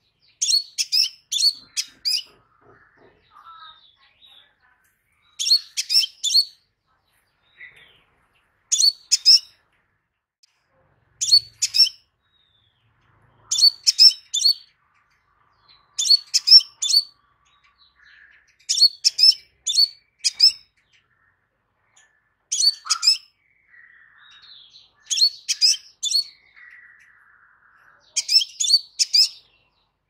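Crimson sunbird calling: sharp, high chirps in quick clusters of three to five, a cluster every two to three seconds, with faint softer twitters in between.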